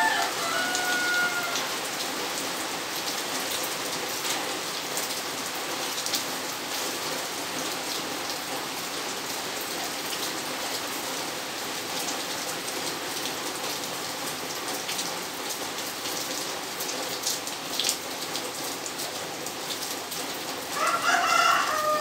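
Steady rain falling, with a rooster crowing briefly at the start and again near the end.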